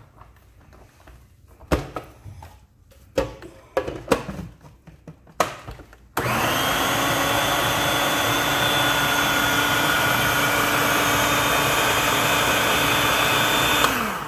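Plastic clacks and knocks as a small food processor's bowl and lid are set in place, then about six seconds in its motor starts abruptly and runs steadily with a constant hum, blending a thick fritter batter to a creamy consistency. Near the end the motor switches off and winds down.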